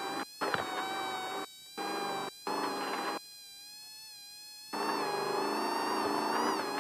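Off-road race vehicle running at speed: a steady high-pitched whine over engine and road noise. The sound drops out briefly several times, and for about a second and a half in the middle.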